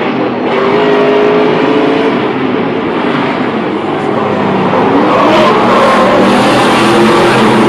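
Several Stadium Super Trucks' V8 engines racing in a pack, their pitches rising and falling together as they rev, shift and pass. The sound grows louder from about five seconds in as trucks come by close.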